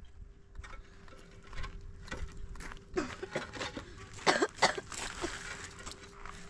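Hollow concrete blocks being set onto a block wall: a run of knocks and scrapes of block on block, with two loud knocks close together about four seconds in.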